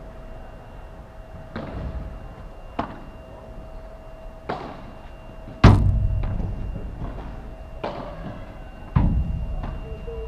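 Padel rally: sharp pops of the ball off the rackets and court, and twice, about halfway and near the end, a heavy thud of the ball hitting the glass wall close by, ringing on as it dies away.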